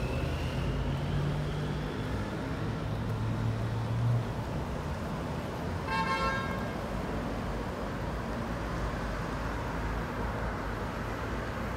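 City street traffic, with a vehicle engine humming low for the first four seconds or so and a single short vehicle horn toot about six seconds in.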